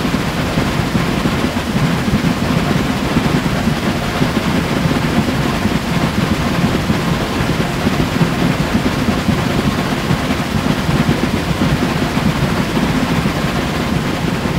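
A heritage steam train's carriages running along the line, heard from an open carriage window as a steady, loud rumble and rush.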